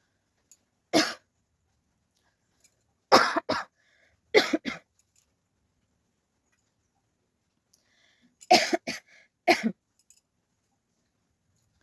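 A person coughing in short, sharp bursts, about ten coughs in clusters of one to three with a pause of several seconds in the middle.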